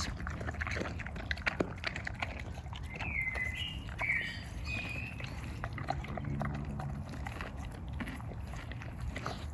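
A Dalmatian chewing a brined, fermented cucumber (a Polish gherkin): irregular wet crunching and mouth clicks throughout.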